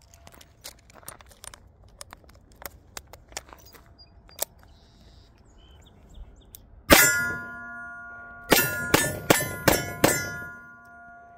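Light metallic clicks of a revolver being loaded and closed, then six revolver shots at steel targets. The first shot comes about seven seconds in, then five more follow in quick succession, and the hit steel plates ring on after the shots.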